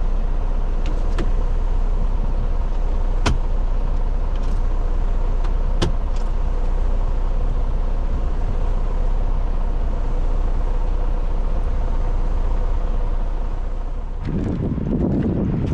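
A vehicle engine running steadily, a low rumble with a faint steady hum, broken by a few sharp clicks. A louder, rougher rush of noise comes in near the end.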